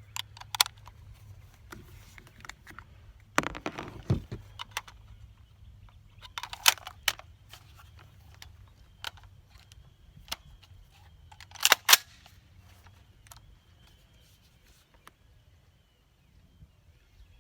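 Scattered metallic clicks and knocks of an AR-15 rifle being handled before firing, the loudest a sharp double clack about twelve seconds in.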